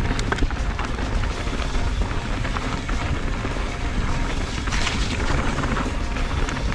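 Mountain bike ridden fast down a dirt jump trail: steady wind rumble on the camera microphone and tyre noise on dirt, with scattered short clicks and rattles from the bike.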